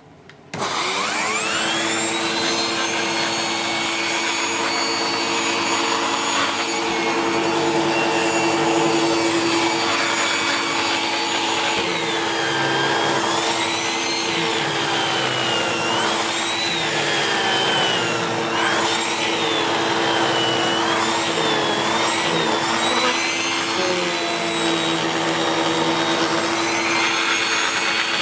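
SEBO X4 Extra upright vacuum cleaner switched on about half a second in, its motor whine rising as it spins up, then running steadily with the turbo brush head fitted to its hose. Through the middle stretch the pitch wavers up and down, then settles again near the end.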